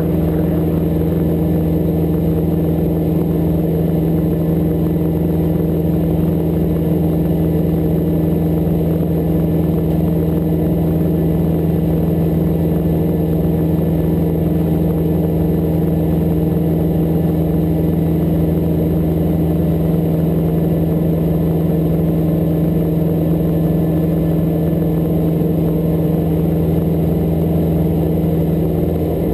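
Hughes 269 light helicopter's piston engine and rotors running steadily: a loud, constant drone with a strong low hum that holds the same pitch throughout.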